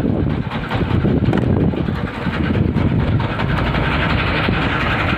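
Fishing boat's engine running steadily, with a fast, rough low rumble.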